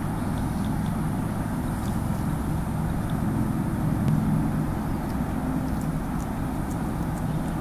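Steady low rumble of distant motor traffic, with a wavering engine drone, and a few faint high ticks over it.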